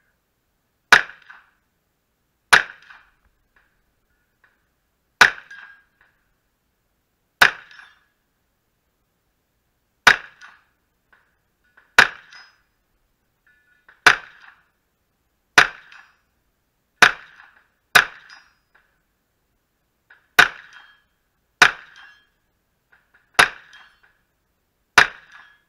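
Pistol-calibre carbine firing single, well-spaced shots: fourteen sharp reports, one every one to two and a half seconds, each with a short ring-out.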